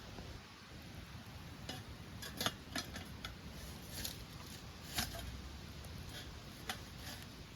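Scattered sharp clicks and light taps, about eight spread over several seconds, over a faint low background rumble.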